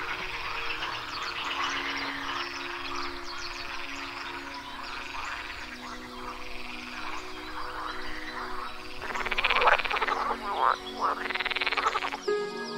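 Green water frogs croaking in a duckweed-covered pond: a chorus of calls throughout, with two loud, close rattling croaks about nine and eleven seconds in.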